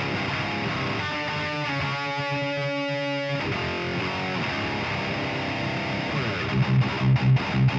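Heavily distorted electric guitar, a Harley Benton fitted with a prototype 22k high-output pickup, playing metal riffs through an overdriven amp. A ringing chord is held about two seconds in, and fast, low, chugging hits at about five a second come near the end.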